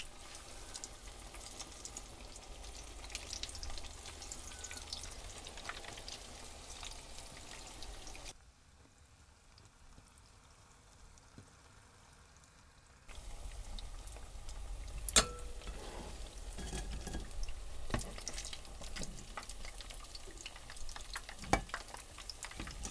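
Taş kadayıf, stuffed semolina pancakes, deep-frying in hot oil in a pan, sizzling and crackling. The sizzle drops much quieter for about four seconds in the middle, then comes back, with a few sharp clicks as a fork and slotted spoon touch the pan.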